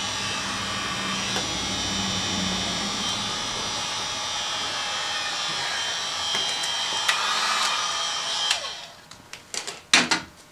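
Electric heat gun blowing steadily while heating vinyl wrap film to work out bubbles. About eight and a half seconds in it is switched off and winds down, followed by a few sharp knocks near the end.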